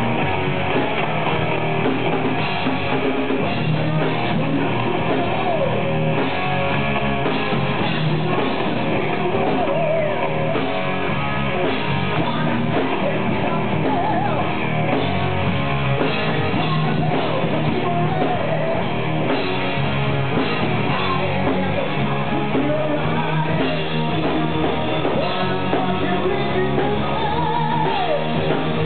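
Live rock band playing: electric guitars and a drum kit, with a singer's voice over them.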